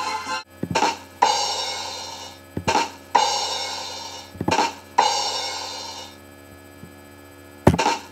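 Drum-kit sting played three times over: two quick drum hits, then a cymbal crash that rings and fades, the 'ba-dum-tss' rimshot sound effect. One more drum hit comes near the end.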